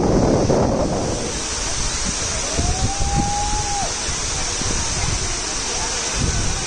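Water pouring over a dam's curved spillway crest: a steady, loud rushing of falling water, with wind buffeting the microphone in the first second or so. A brief whistle-like tone sounds about three seconds in.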